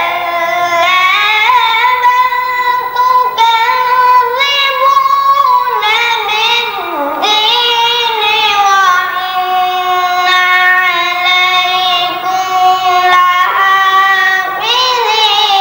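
A boy reciting the Quran in melodic tilawat style: a single young voice holding long, ornamented notes in continuous phrases.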